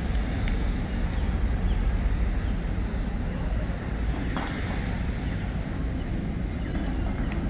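Outdoor ambience in a busy pedestrian plaza: a steady low rumble, with one short sharp click about four and a half seconds in.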